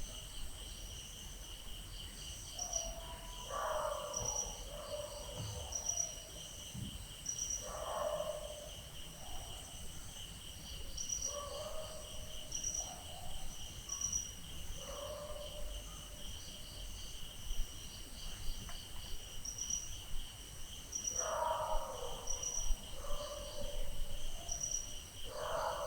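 Night ambience: crickets trilling steadily, with a higher insect chirp repeating about once a second, and dogs barking now and then.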